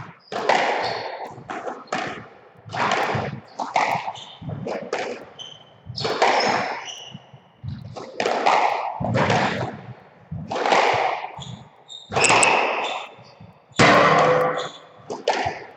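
Squash rally: the ball cracking off the rackets and the court walls, each hit ringing in the hall's echo, about one or two hits a second. Short high squeaks of shoes on the wooden court floor come between the hits.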